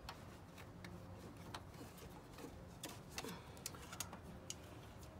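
Faint, irregular metallic clicks and taps of a wrench on the serpentine belt tensioner of a 2013 Honda Accord as the new drive belt is worked onto its pulleys, engine off. A couple of short falling squeaks come near the middle.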